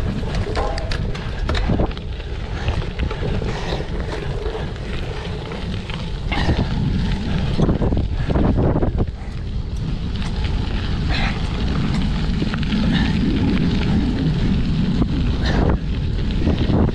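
Wind buffeting the microphone of a cyclocross bike riding at race speed over rough ground, with a steady low rumble and scattered knocks and rattles from the bike.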